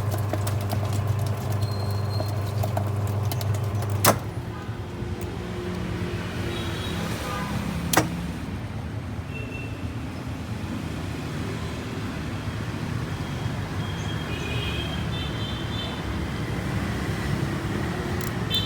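Old Sanyo washing machine humming steadily under power, cut off by a sharp click about four seconds in; another sharp click follows about four seconds later, then only a low rumble remains.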